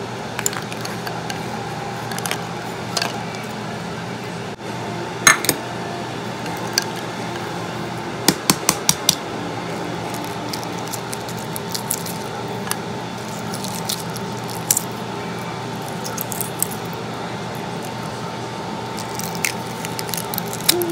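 Hard-boiled eggs being cracked and peeled by hand in a bowl of ice water: sharp taps and crackles of eggshell and ice clinking against the ceramic bowl, a loud click about five seconds in and a quick run of five near the middle, over a steady background hum.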